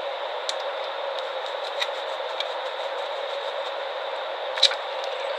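Steady hiss with a few faint clicks and taps, the loudest near the end: small handling sounds as a wire is fitted to a plastic lamp holder.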